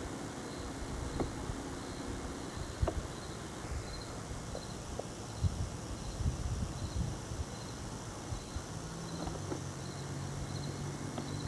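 An insect chirping in a steady rhythm, about one and a half short high chirps a second, over outdoor background noise, with scattered light knocks and a low hum joining near the end.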